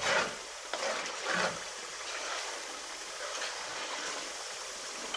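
Chicken curry masala sizzling on a high flame in an aluminium karahi as it is fried down (bhuna), its oil already separated. A ladle stirs and scrapes through it in the first second and a half, then the sizzle goes on steadily.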